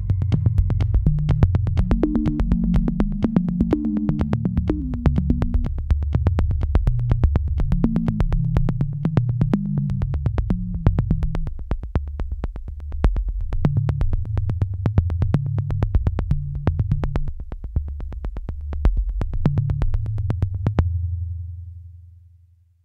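Background electronic music with a steady beat and low synth bass notes; the beat stops near the end and the music fades out.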